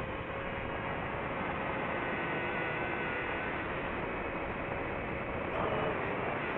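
DJI FPV drone's motors and propellers buzzing in flight over a steady rush of air, the pitch drifting up and down with throttle and rising briefly about five and a half seconds in.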